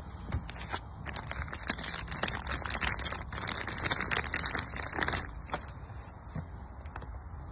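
White protective packaging bag crinkling and rustling as a handheld diagnostic scanner is slid out of it, a dense run of crackles that quiets about five seconds in.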